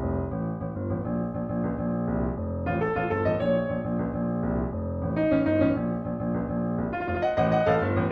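Background music played on a piano-like keyboard, a steady flow of notes.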